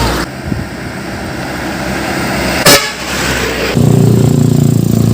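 Truck air horn blowing a loud, low, steady note that starts about three and a half seconds in, over road traffic. A short, sharp sound cuts through a second or so before it.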